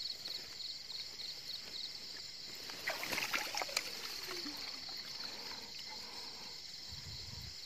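Shallow water sloshing and wet grass rustling as a hand gropes in the mud and pulls out a PVC-pipe eel trap, with a busier stretch of splashing and handling about three seconds in. Night insects chirp steadily behind it.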